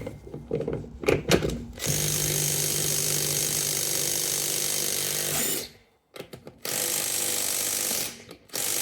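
Impact gun hammering on the wheel's lug nuts in three bursts, the first about four seconds long and the other two shorter, after a few clunks. The lug nuts are too tight for it to loosen.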